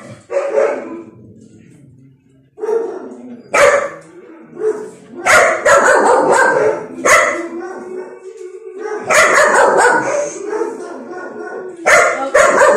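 A dog barking repeatedly in irregular volleys, with one long drawn-out howling note between barks a little past the middle.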